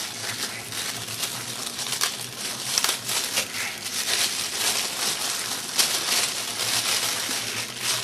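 Packaging being crinkled and rustled by hand, an irregular run of crackles and sharp crunches with no pauses, over a faint steady low hum.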